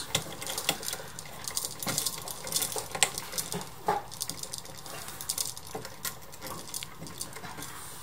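Twist-on plastic wire nut being screwed onto copper wires and the stiff wires pushed about in a metal wall switch box: irregular small clicks and scrapes, thinning out after about six seconds.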